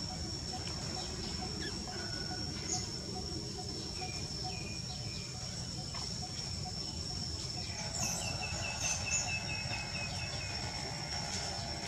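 A steady, high-pitched insect drone with scattered bird chirps. About 8 seconds in, a bird gives a quick run of about eight short repeated notes.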